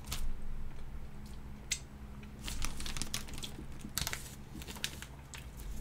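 Clear plastic cookie bag crinkling in a few short, separate rustles as a large cookie is handled and pulled out of it.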